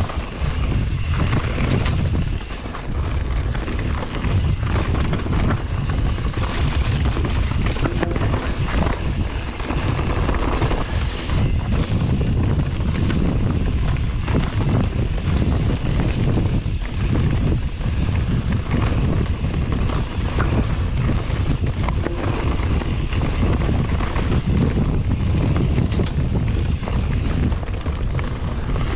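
Wind buffeting a mountain bike rider's camera microphone over the constant rumble of the tyres rolling down a wet dirt-and-stone trail, with frequent short rattles and knocks as the bike goes over rough ground.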